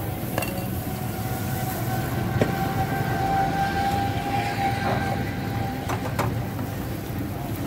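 Butter and kulchas sizzling on a large flat iron griddle, with a few clicks of metal tongs against it, over a steady rumble of street noise. A steady high tone holds for about five seconds through the middle.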